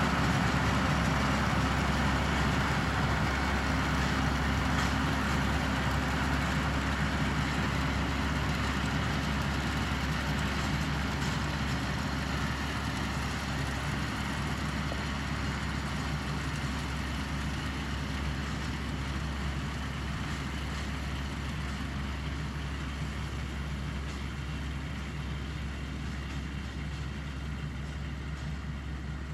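Valtra 6300 tractor's diesel engine running steadily, growing gradually fainter.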